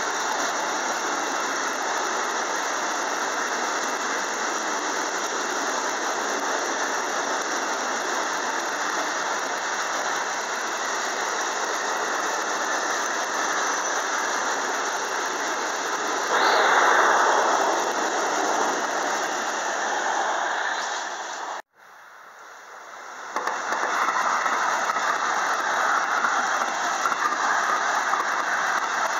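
Freight train of hopper wagons passing: a steady rush of wheels on the rails with a high squeal running over it. The noise swells louder about sixteen seconds in, cuts out suddenly near twenty-two seconds, then comes back after a quieter moment.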